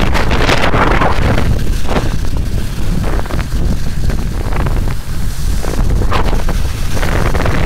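Wind buffeting the microphone of a camera carried by a skier on the move, a loud steady rumble. Several short hissing swishes of the skis carving through soft, slushy spring snow come through it, near the start, about two seconds in, and twice near the end.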